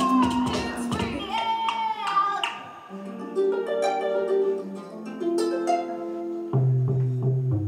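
Instrumental music of plucked string notes over held tones, with a deep bass coming in near the end.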